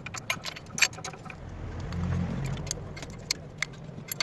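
Small metal parts clinking and clicking irregularly, many light ticks in quick succession, over a low steady hum.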